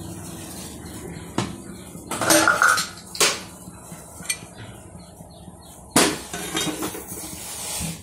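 A metal pot of boiling ginger water knocking and clinking against the gas stove's grate as it is handled and lifted off the burner, over the steady noise of the boil. The sharpest knock comes about six seconds in.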